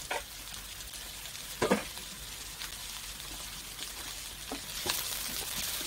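Chopped onion, carrot and champignon mushrooms sizzling in olive oil in a stainless steel frying pan: a steady frying hiss that grows a little louder near the end, with a few short clicks.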